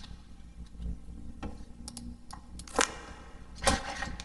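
A handful of sharp, separate clicks from a computer keyboard and mouse, the two loudest a little under a second apart near the end, over a low steady hum.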